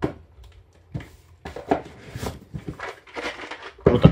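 A cardboard game box being handled and closed: scattered taps, clicks and a stretch of rustling as the lid goes on, then a louder knock near the end as the box is set down on the table.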